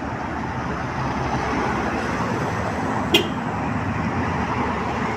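Cars driving past close by, a steady hiss of tyres and engines from road traffic. One sharp click a little over three seconds in.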